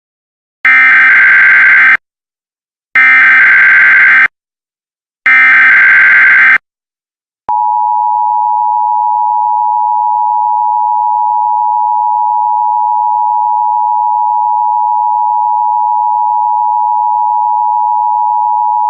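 Emergency Alert System opening: three bursts of SAME digital header data, each about a second and a half long and separated by short pauses. After a pause of about a second comes the steady two-tone EAS attention signal, 853 and 960 Hz sounded together, which announces a severe weather warning.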